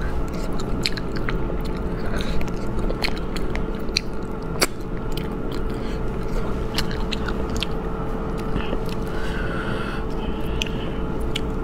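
Close-up mouth sounds of eating spicy braised rabbit head: chewing and sucking the meat off the bone, with many small wet clicks and smacks. Near the end the head is pulled apart by hand.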